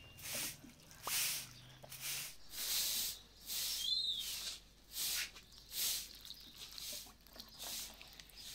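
Broom sweeping a yard in regular brisk strokes, each a short bristly swish, a little under two a second. A single short bird chirp about four seconds in.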